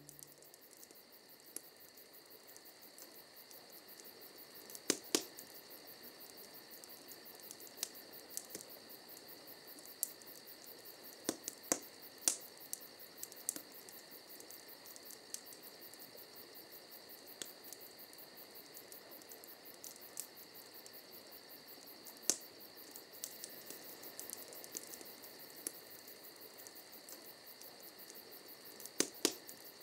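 Crickets chirping steadily, with a few sharp pops from a crackling campfire scattered through, loudest near the middle and near the end.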